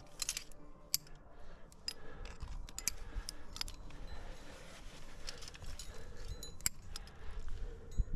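Metal climbing gear, carabiners and quickdraws on a harness, jingling and clinking in a string of sharp metallic clicks as the climber moves on the rock.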